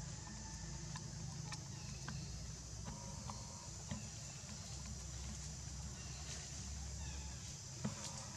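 Outdoor background: a steady low rumble and a steady high hiss, with scattered small clicks and a few short, faint chirps. A sharp click just before the end is the loudest sound.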